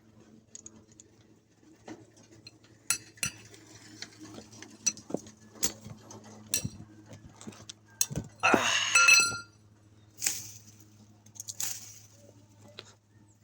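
Metal tools clinking and tapping against metal, with one louder clatter that rings briefly about two-thirds of the way through, over a faint steady low hum.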